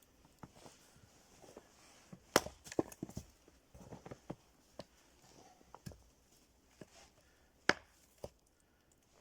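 Firewood being split: two sharp chopping strikes about five seconds apart, with a cluster of smaller wooden knocks and steps between them.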